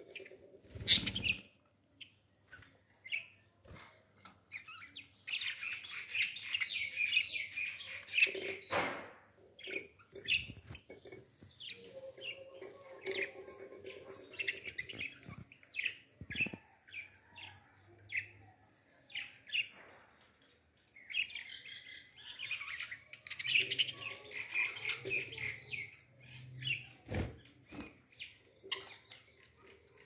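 Pet budgerigars chirping and chattering, with two longer stretches of dense chatter between scattered single chirps. A few sharp knocks are mixed in, the loudest about a second in.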